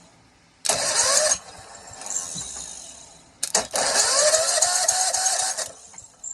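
Kawasaki FH601V V-twin engine being cranked over twice: a short burst of about a second, then a longer one of about two seconds, each with a rising whine as it spins up and each cutting off suddenly.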